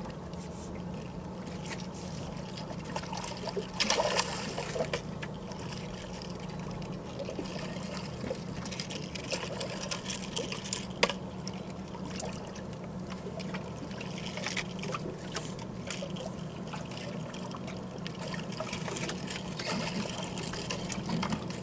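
Water lapping and trickling against an aluminium boat hull over a steady low hum, with a few sharp knocks, the clearest about four seconds and eleven seconds in.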